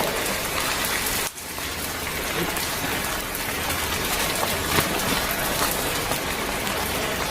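Heavy rain pouring steadily, with a brief dip in level about a second in.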